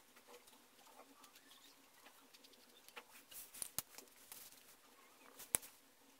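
Faint scratching of a pen on paper as lines are drawn, with two sharp clicks, one a little under four seconds in and a louder one near the end.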